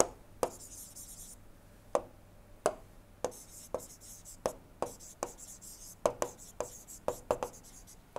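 Pen stylus tapping and scratching on a tablet screen during handwriting: sharp irregular taps that come more often in the second half, with a faint scratchy hiss of the pen tip sliding between them.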